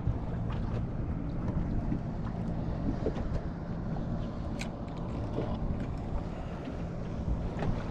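Wind noise on the microphone and water around a small open boat, with a low steady hum underneath and a few light clicks, the sharpest about four and a half seconds in.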